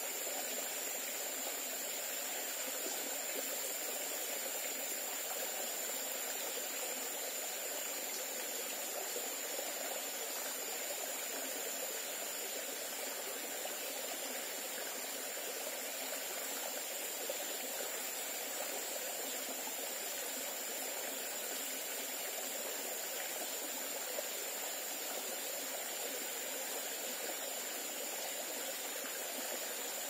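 Forest stream running steadily over a small rocky cascade into a pool, a continuous rushing and trickling of water, with a thin steady high-pitched tone above it.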